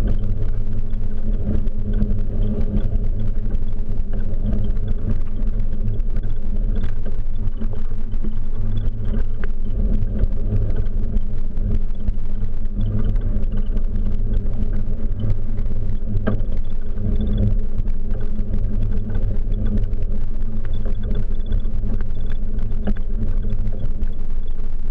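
Steady low rumble of wind and road vibration picked up by a handlebar-mounted camera on a bicycle rolling over stone paving, with a few light rattling clicks.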